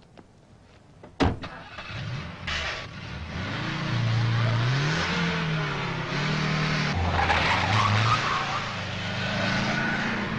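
A sharp thump about a second in, then a car engine speeding up hard, its pitch stepping up and falling back as it changes gear, under loud tyre and road noise.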